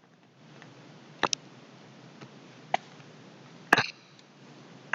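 Faint steady hiss of a quiet recording with a handful of short, sharp clicks about a second apart.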